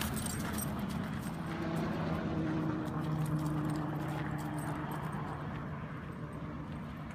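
Footsteps and a dog's paws crunching on gravel, with light jingling of leash and collar hardware, over a steady low vehicle engine hum.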